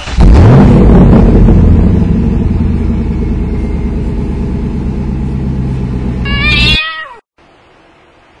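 A car engine revs up and runs steadily, slowly fading. A cat meows once near the end, and the engine sound cuts off with it.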